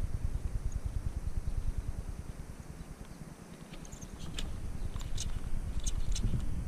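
Wind buffeting the microphone with a low rumble that eases off about halfway through, then a scatter of short, sharp clicks over the last couple of seconds.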